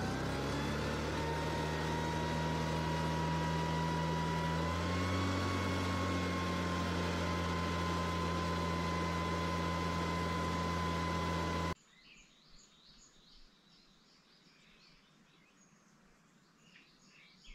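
A backpack power fertilizer spreader's small two-stroke engine runs at speed with its blower rushing air, rising a little in pitch about five seconds in. It cuts off abruptly a little before twelve seconds in, leaving faint bird chirps.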